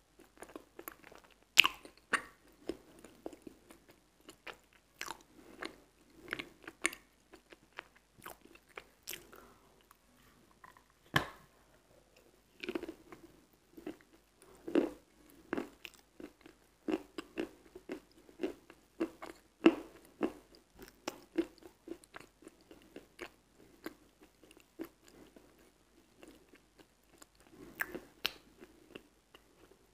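Close-miked biting and chewing of a wet, crunchy white dessert: irregular sharp crunches and crackles over steady wet chewing, the loudest crunch about a second and a half in.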